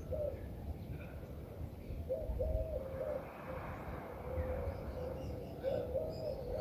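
A dove cooing: a phrase of a few low coos, repeated about every three and a half seconds, with faint high chirps of small birds near the end.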